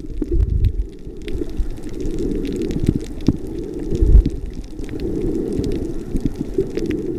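Muffled underwater rumbling and sloshing with scattered crackles and two heavy low thumps, the louder one about four seconds in.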